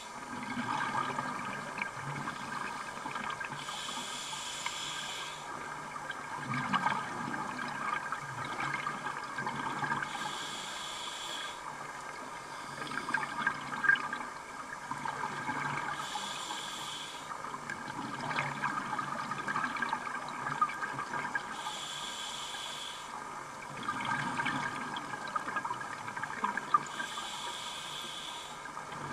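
Scuba diver breathing underwater through a regulator: a hiss on each inhalation, five times at about six-second intervals, with bubbling exhalations in between, over a steady fine crackle.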